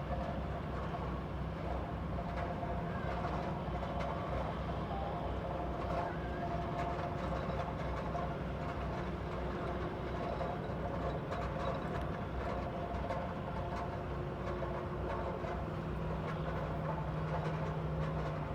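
Continuous low drone of drilling-rig machinery running, with a steady engine hum and a few held tones over it, measured at more than 65 dBA.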